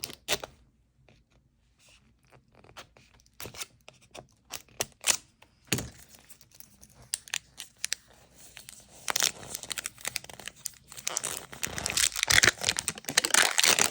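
Plastic toy packaging being torn open and crinkled by hand: scattered crackles and clicks at first, then continuous tearing and crinkling for the last few seconds.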